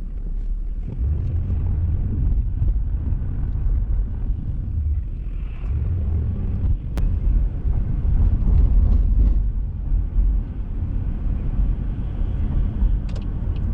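Steady low rumble of a car driving, heard from inside the cabin, with a sharp click about seven seconds in.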